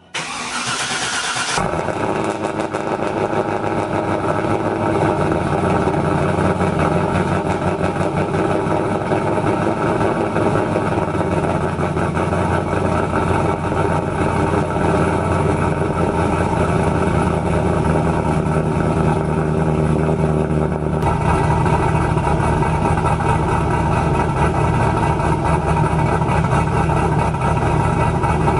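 Cold start of a 2000 Pontiac Trans Am WS6's cammed LS1 V8, breathing through long-tube headers and a Borla catback exhaust. It cranks briefly and catches, then settles into a steady idle. The idle note shifts a little about 21 seconds in.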